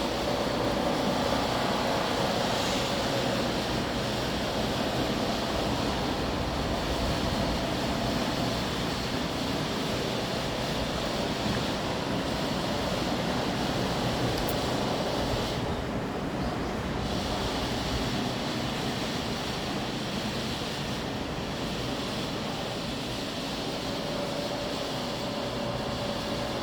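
Strong stormy wind rushing steadily as a typhoon approaches, with brief dips in the hiss about sixteen and twenty-one seconds in.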